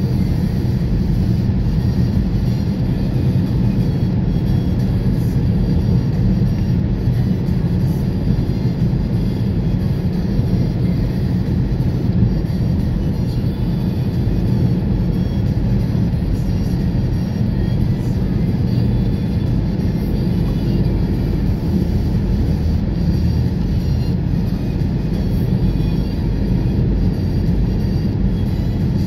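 Steady road and engine noise inside a moving car's cabin: a low, even rumble of tyres and engine at cruising speed.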